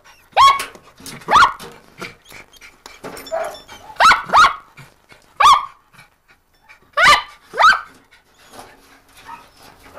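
A terrier barking about seven times in short, sharp yaps at uneven intervals, some in quick pairs: a terrier marking a rat hidden in a hole under a concrete slab.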